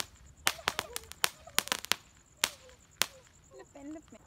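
Small ground firecracker going off, an irregular string of sharp pops and cracks, about a dozen in four seconds.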